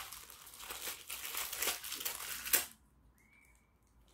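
Crumpled wrapping crinkling and crackling as a child's hands work it open, with a sharp loud crackle about two and a half seconds in, after which the crinkling stops.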